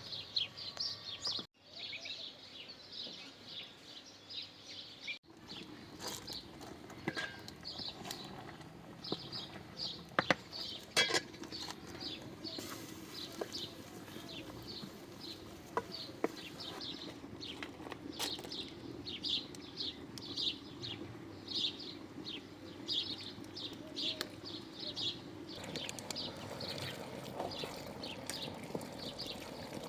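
Small birds chirping over and over, short high chirps a couple of times a second, with a few sharp knocks in between.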